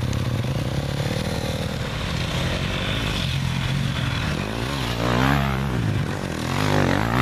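Two KTM dirt bikes pulling away and riding off one after the other, their engine pitch rising and falling with the throttle. The revs swell loudest about five seconds in and again near the end.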